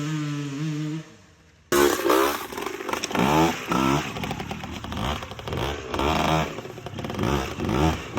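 Suzuki PE175 two-stroke single-cylinder enduro engine holding a steady note that stops about a second in. After a short gap it is revved up and down again and again, blip after blip.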